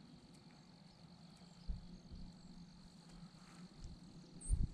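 Faint, steady high-pitched insect trill in the background, with a low thud about two seconds in and some low bumps near the end.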